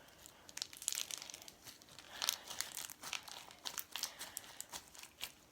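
Grey-purple slime with foam beads and pearls mixed in, squeezed and worked in the hands, giving irregular crackling and clicking.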